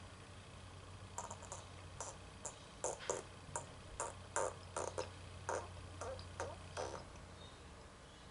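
About fifteen light clicks and taps at uneven intervals, starting about a second in and stopping near the end.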